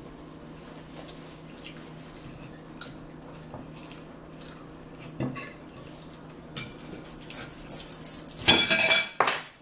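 A metal fork clinking and scraping against a plate: a few light taps, one sharper click about halfway, then a quick run of loud scrapes and clinks near the end.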